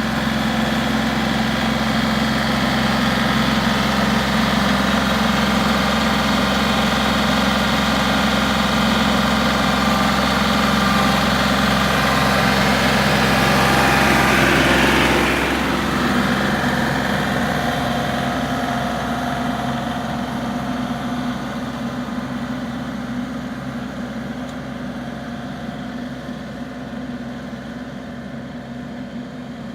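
Farm tractor engine running steadily, loudest about halfway through, then slowly getting quieter.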